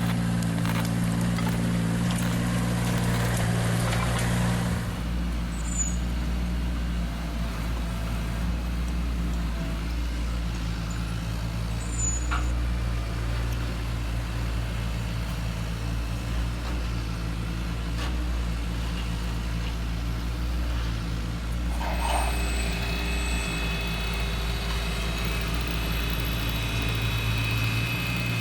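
Steady diesel-engine running sound of a heavy construction vehicle, changing in pitch about five seconds in and again near twenty-two seconds.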